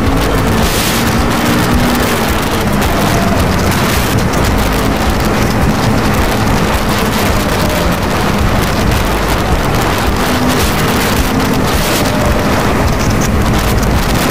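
Steady wind roar on the microphone of a CFMoto 400NK motorcycle cruising at road speed, with the engine's hum running underneath it.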